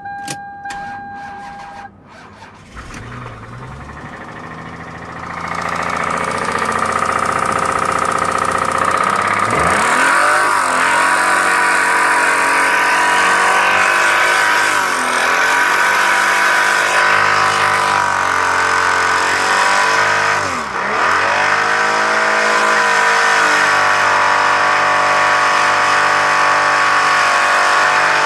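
A 1998 Toyota Camry engine with a rod knock, started after a brief steady chime and then held at high revs. The revs sag and climb back three times. The engine is being over-revved until it throws a rod.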